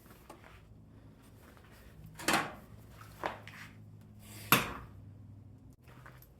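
Hand tools and small metal parts clattering as they are picked up and set down during repair work on a push mower: three sharp clanks about a second apart, the last the loudest, over a steady low hum.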